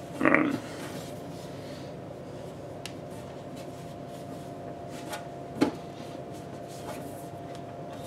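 Tempered-glass side panel of a PC case being handled: faint rubbing and a single sharp knock about five and a half seconds in, over a steady faint hum.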